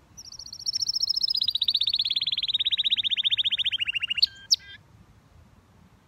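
Canary singing one rapid trill that falls in pitch and slows over about four seconds, ending with two sharp high notes.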